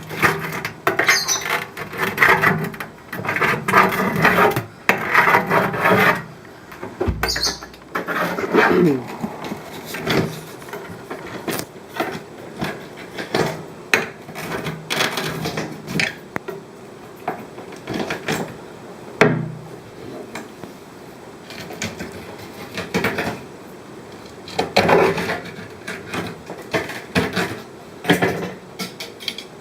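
Workshop handling noises: irregular knocks, clicks and rubbing or scraping, with a couple of short squeaks.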